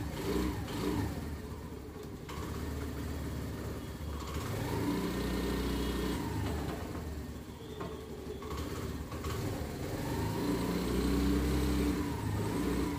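Honda Activa 125 scooter's single-cylinder four-stroke engine idling, with the throttle opened and eased off twice so the engine note rises and falls.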